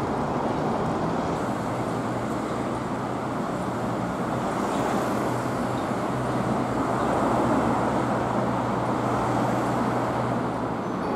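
Steady road traffic noise from cars and engines running along a busy road, an even rush with a low engine hum underneath.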